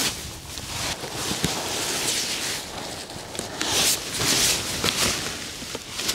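Gusty wind buffeting the microphone, with the thin nylon tent fabric rustling and flapping as it is handled and raised. The hiss swells in gusts, loudest a couple of seconds in and again around four to five seconds.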